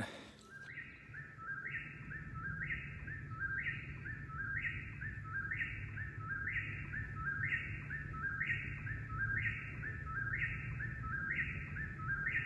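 Eastern whip-poor-will singing its repeated "whip-poor-will" song, very loud, about one phrase a second. A low steady hum runs underneath.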